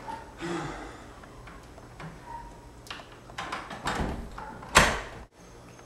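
Handle and latch of a glass-paned French door clicking and rattling as the door is worked open, with a cluster of knocks and then one loud bang of the door about five seconds in.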